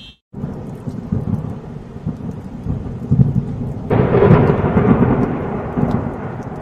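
Thunderstorm: a steady noisy rumble, then about four seconds in a sudden, louder thunderclap from a close lightning strike that rolls on for about two seconds.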